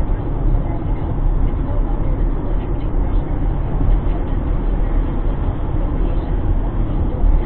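Steady low road rumble heard from inside a car driving at highway speed.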